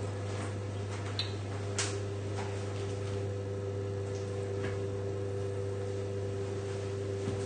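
Steady low electrical hum with a fainter higher tone, and a few faint clicks and knocks about a second in, near two seconds and near five seconds.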